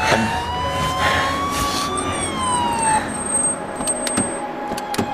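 An emergency vehicle siren wailing: a long slow rise in pitch that peaks about two seconds in, then falls and fades out. A few sharp clicks come near the end.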